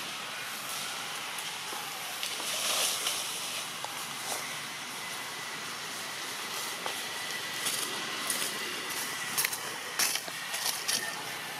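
Steady, even hiss of outdoor forest background, with a faint thin high tone held through most of it. Scattered sharp clicks and crackles, more frequent in the second half.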